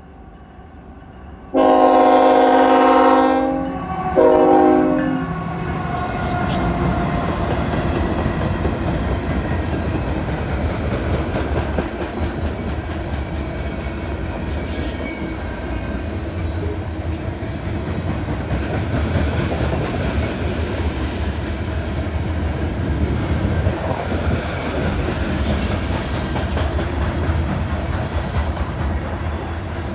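Norfolk Southern diesel locomotive horn sounding a long chord blast about a second and a half in, then a short blast, as the train reaches the grade crossing. After that the locomotives pass and a long string of grain hopper cars rolls by: a steady rumble of steel wheels on rail with occasional clicks at the rail joints.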